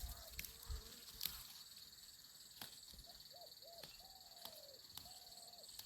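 Faint outdoor insect chorus, a steady high buzz, with a string of short arched calls from a bird and a few sharp clicks.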